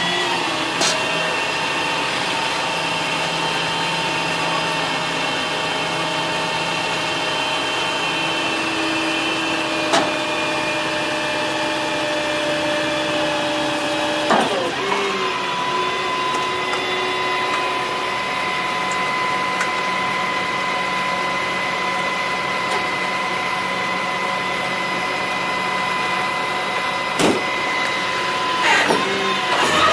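Rollback tow truck's engine running while the hydraulic tilt bed is worked from its side controls: a steady whine that dips and settles at a new pitch about halfway through, with two sharp knocks, one near the end.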